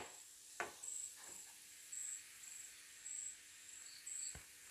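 Cricket chirping in short high-pitched pulses, about two a second. A plastic spatula clicks against the frying pan at the start and again about half a second in, and there is a soft thump near the end.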